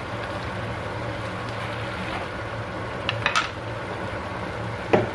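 Noodles and sauce sizzling and simmering in a non-stick wok over a steady low hum, with a few light clicks of wooden chopsticks against the pan about three seconds in and a sharp knock on the pan near the end.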